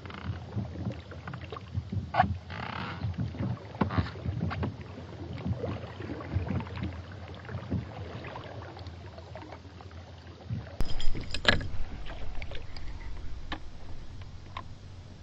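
Water lapping and knocking against a plastic kayak hull, with small clicks and knocks from gear on the boat, and a louder cluster of knocks late on.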